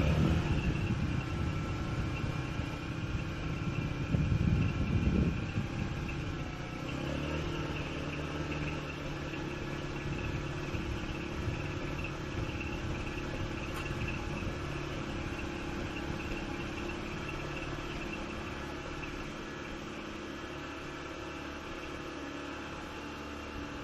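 Mazda RX-8's two-rotor Renesis rotary engine blipped once about four seconds in, then settling to an idle whose speed wanders up and down slightly while it runs on Seafoam shortly after a cold start.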